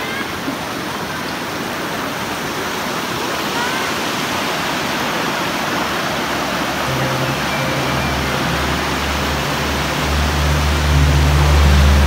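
Steady rush of a mountain stream and waterfall running over rocks. Background music with low, held bass notes comes in about seven seconds in and grows louder near the end.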